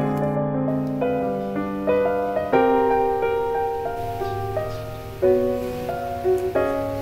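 Background piano music: a melody of held notes over low bass notes, moving to a new note about every half second.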